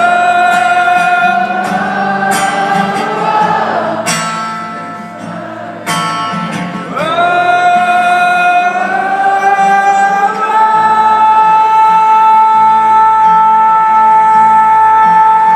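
Live rock band performing with a singer holding long sustained notes over guitar, with a few sharp drum hits around the middle; the last note is held steady for several seconds.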